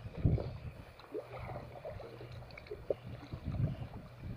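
Sea water slapping and lapping against the hull of a small outrigger fishing boat, in uneven surges.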